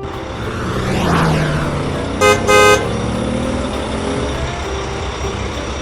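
Cartoon vehicle sound effects: an engine running steadily under a swell that rises and falls about a second in, then two short honks of a horn a little after two seconds.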